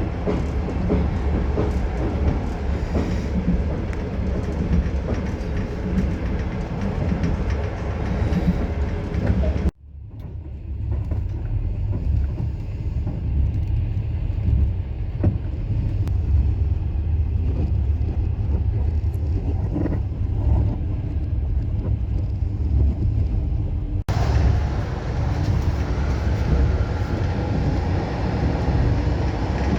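Passenger train running along the line, heard from inside the carriage: a steady low rumble of wheels on rails. The sound cuts off abruptly about ten seconds in and comes back duller and more muffled, then switches back to the brighter sound about twenty-four seconds in.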